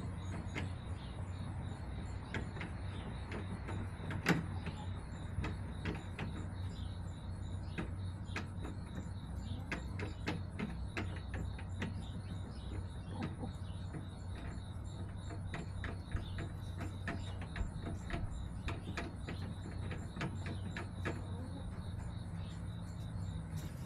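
Irregular light taps and clicks, one stronger tap about four seconds in, over a steady low hum. The taps are typical of hens pecking at feed.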